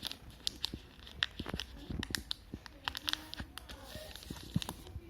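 Plastic chocolate wrappers crinkling and crackling as they are handled, with irregular sharp clicks.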